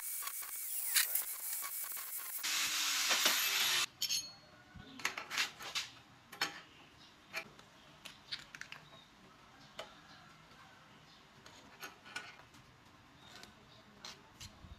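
An angle grinder grinds steel angle iron for the first four seconds, most densely in the last second and a half, then cuts off abruptly. After that come scattered light metallic clinks and taps as small pieces of steel angle are handled and set down on a steel workbench plate.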